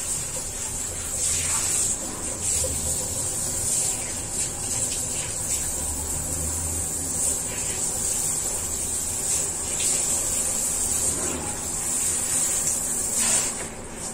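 Water spraying steadily from a handheld shower head onto a small dog's legs and the tiled floor, stopping right at the end.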